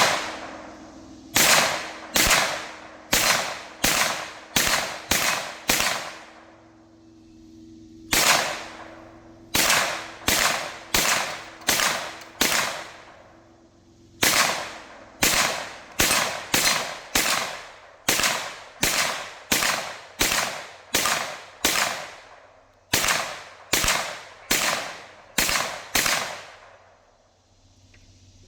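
A firearm fired semi-automatically at an outdoor range: about 35 shots in strings at roughly two shots a second, with short pauses between the strings. Each shot is sharp, with a brief ringing tail.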